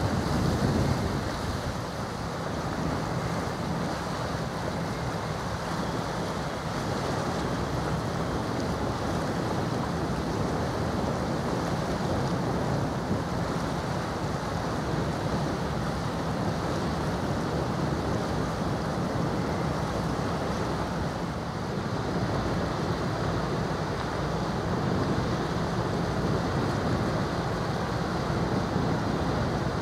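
Steady shoreside ambience of wind on the microphone and water along the strait, with a faint low hum underneath.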